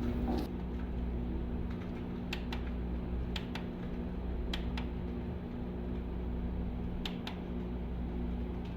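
Steady hum of computer cooling fans running, with scattered light clicks of plastic parts being handled, about ten in all.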